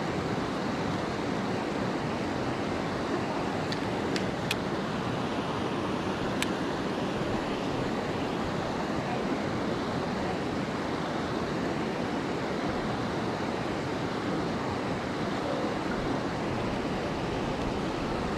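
Fast-flowing creek water rushing steadily, with a few faint clicks about four and six seconds in.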